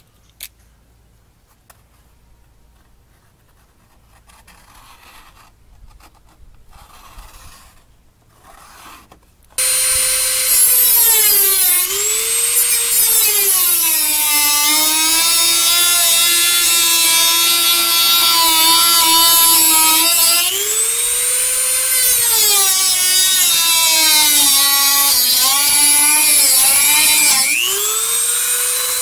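A cordless Dremel rotary tool with a cutting disc starts about ten seconds in and cuts through the plastic fender flare. Its high whine drops in pitch each time the disc bites under load and climbs back as it eases off.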